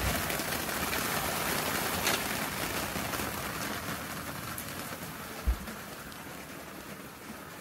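Steady thunderstorm rain falling, slowly getting quieter, with a brief low thump about five and a half seconds in.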